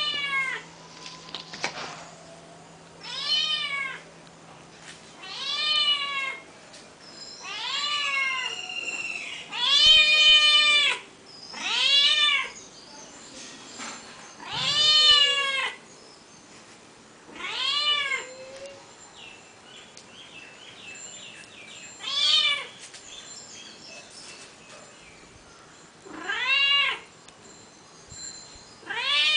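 Tortoiseshell cat meowing over and over: about ten long meows, each rising and then falling in pitch, a few seconds apart, with a longer pause past the middle.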